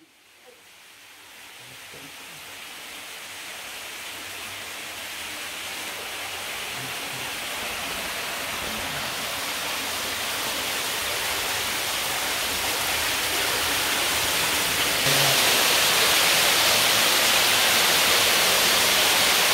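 Steady rush of water, an even hiss that grows louder over the first fifteen seconds and then holds loud.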